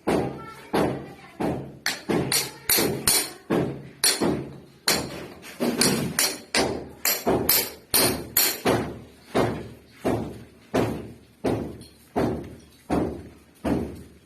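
Hammer blows struck repeatedly at a steady pace of about two a second, each a sharp knock with a brief ring.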